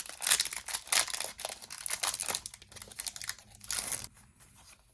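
A foil Pokémon trading card booster pack being torn open, the wrapper crinkling and ripping for about four seconds.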